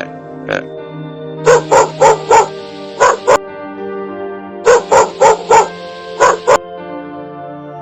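Dog barking in quick runs, a burst of four and then two, twice over, after a couple of single barks, over background music.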